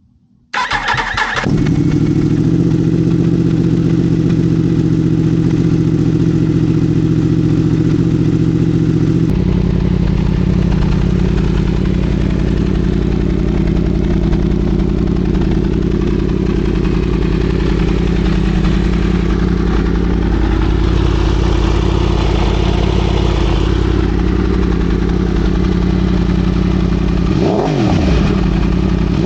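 A 2017 Yamaha R1's 998 cc crossplane inline-four, breathing through a Leo Vince 3/4 exhaust with the catalytic converter removed, is started about half a second in and then idles steadily. Near the end it is given a quick rev that rises and falls.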